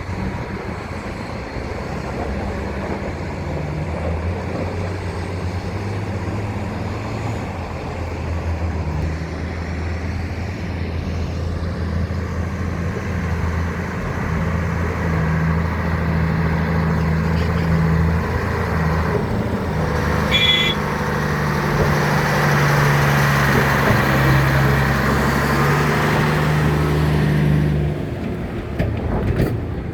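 Large diesel engine of a Hitachi 870 excavator running steadily, its note shifting and growing louder under hydraulic load from about halfway through, then easing off near the end.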